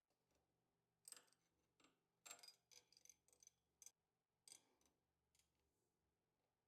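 Faint metallic clicks and ticks of a wrench on the lock nuts of a Honda CB750's throttle cable adjusters, being tightened down. There are about half a dozen scattered clicks, a few of them close together in the middle.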